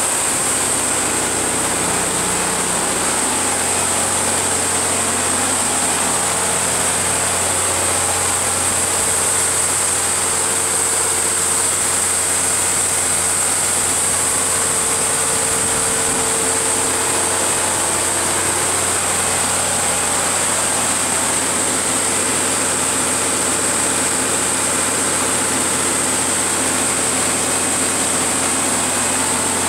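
Cummins QST30 V12 turbodiesel of an 800 kW DQFAB generator set running steadily, heard from inside its enclosure, with a constant high-pitched whine over the engine's steady low hum.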